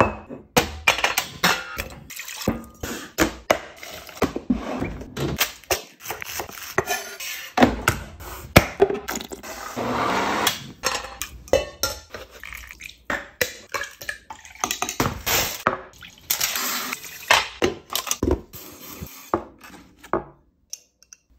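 A quick run of kitchen cooking sounds: liquid pouring, dishes and utensils clinking and knocking, a blender running briefly about ten seconds in, and aluminium foil crinkling near the end.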